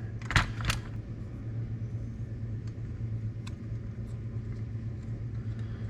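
Small carburetor parts handled on the bench: two sharp clicks about half a second in, then a few faint ticks, over a steady low hum.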